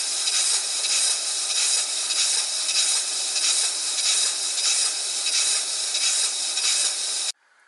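Stuart Victoria single-cylinder horizontal model steam engine running on compressed air, its exhaust chuffing rapidly over a steady hiss. The sound cuts off suddenly near the end.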